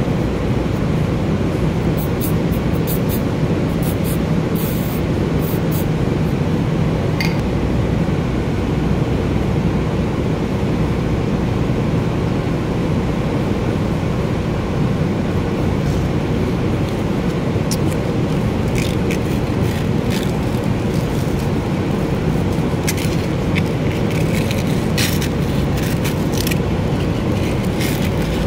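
Loud, steady low machine drone with a constant hum, and scattered small clicks and taps, thickest in the second half, as a power window motor's armature and brush holder are handled.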